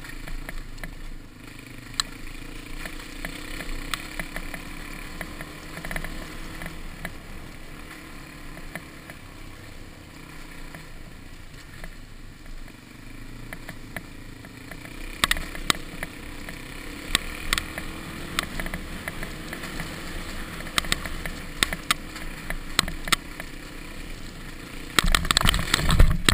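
Dirt bike engine running at steady low to moderate revs on a rough dirt track, with scattered rattles and knocks over the bumps. Near the end comes a sudden loud jumble of knocks as the bike crashes.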